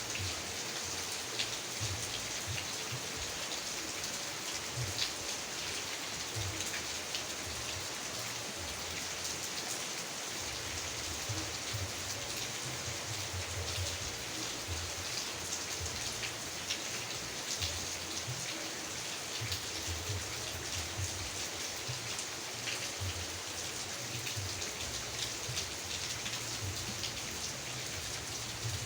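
Rain falling steadily, an even hiss with many scattered individual drop ticks.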